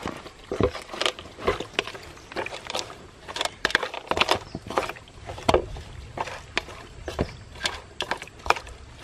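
Irregular clicks, snaps and knocks, a few each second, with no steady sound under them.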